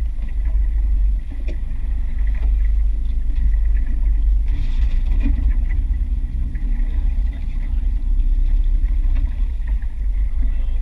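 Steady low rumble of a small aluminium fishing boat's outboard motor running, with wind buffeting the microphone.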